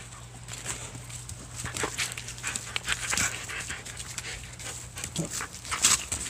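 A dog panting while chewing and tugging at a thick frayed rope, with irregular short sharp noises of the rope being bitten and worked; the loudest comes near the end.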